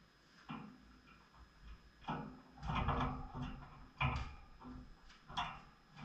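Small cage bird pecking at seed in a plastic feeder cup clipped to the cage wires: irregular clicks, knocks and rattles, sparse at first and busier from about two seconds in.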